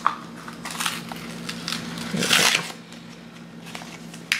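Tissue paper and gift packaging rustling and crinkling as a small present is unwrapped by hand, with scattered light clicks and one louder crinkle a little past two seconds in.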